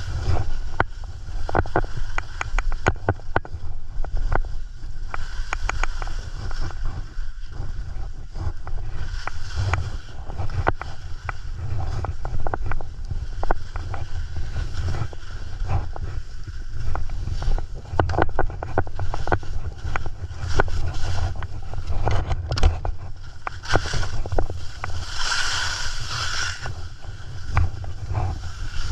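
Wind rumbling over a GoPro's microphone during a ski descent, with the skis scraping and rattling on the snow in many short strokes, and a longer, louder hissing scrape near the end.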